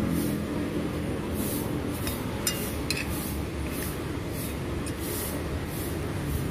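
A metal spoon and fork scraping and clinking on a ceramic plate, with two sharp clinks about two and a half and three seconds in. Underneath runs a steady background rumble and a high hiss that pulses about twice a second.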